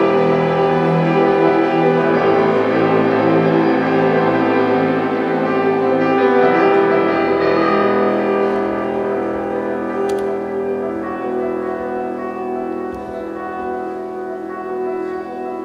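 Classical music: piano with a string orchestra, sustained chords growing gradually quieter.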